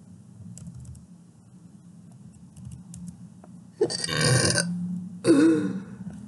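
A few faint computer-keyboard key clicks as text is deleted, then two short vocal noises that are not words, about four and five seconds in.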